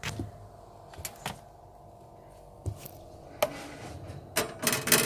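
Light knocks and clicks of campervan kitchen-unit fittings being handled (doors, lids, catches), ending in a short rattling cluster of clacks near the end.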